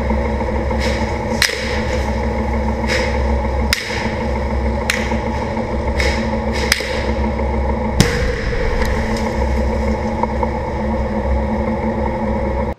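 A tank's diesel engine running close by with a steady low drone. Scattered sharp knocks sound over it, the sharpest about eight seconds in.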